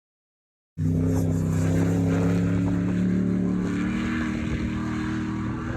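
Off-road 4x4's engine running steadily, starting abruptly under a second in, its pitch stepping up slightly about four seconds in.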